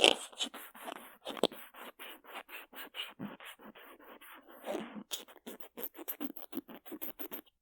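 Cotton swab rubbing on the microphone side of an earphone shell, picked up by the Mu6 Lifelike2's built-in binaural mics: quick scratchy strokes, several a second, with a loud scrape at the start and another about one and a half seconds in. The mics' white-noise hiss has been cut by noise reduction, so the gaps between strokes are dead silent.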